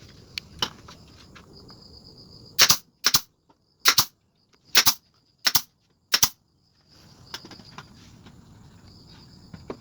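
Six loud, sharp strikes about two-thirds of a second apart: nails being driven into pallet-wood boards. Crickets chirp steadily before and after.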